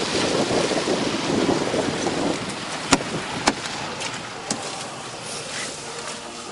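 Steady rushing noise of wind and rain on the microphone, fading gradually as it moves from outside into a car's rear cabin, with two sharp clicks about three seconds in, half a second apart, as the rear door is handled.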